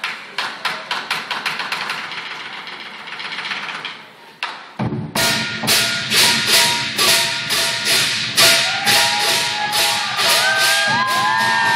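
Lion dance percussion: a drum with clashing cymbals. Rapid strikes thin out and stop briefly about four and a half seconds in, then a loud steady beat of about two to three strikes a second picks up, with voices whooping near the end.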